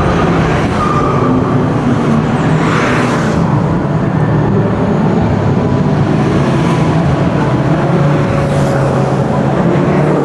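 Car engine running steadily under way, a constant low drone, with a brief rush of noise about three seconds in.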